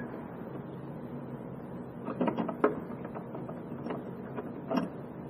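A few light clicks and taps of a flat screwdriver against the small metal and plastic parts of a spreader's rate dial holder as its legs are spread. There is a quick cluster about two seconds in and a single click near the end.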